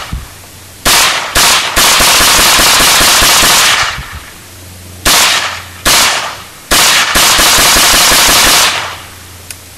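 AR-15 rifle firing loud rapid strings of shots: two quick shots, then about two seconds of continuous rapid fire, then three more shots and another run of rapid fire lasting nearly two seconds.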